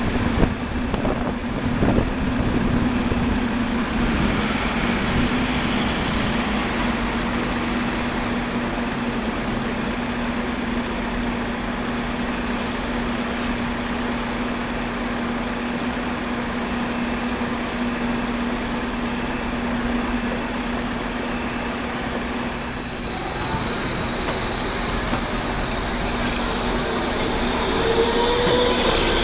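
Bombardier Incentro tram humming steadily at the stop over general street traffic noise, then moving off; from about three-quarters of the way through, its wheels squeal high on the curved street track, with wavering squeals near the end.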